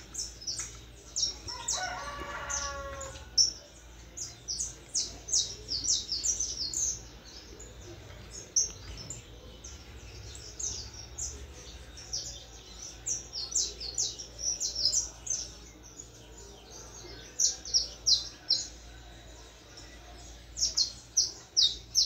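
Young canary singing its first, unformed song: bouts of short, high chirps and trills with short gaps between them, a fledgling just beginning to sing.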